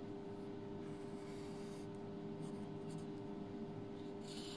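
Felt-tip marker writing on paper: a few short, scratchy strokes, the last ones near the end the loudest.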